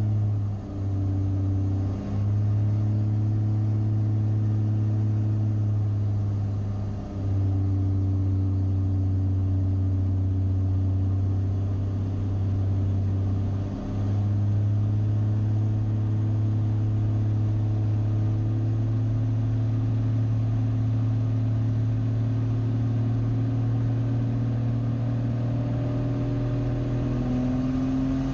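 Light aerobatic plane's piston engine and propeller droning steadily, as heard in the cockpit. The drone dips briefly four times, shifting pitch slightly each time, and rises a little in pitch near the end.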